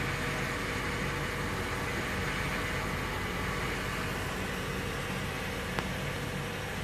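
Petrol flowing from a pump nozzle into the fuel tank of a classic Ford F-250 pickup: a steady rushing hiss, with a faint click near the end.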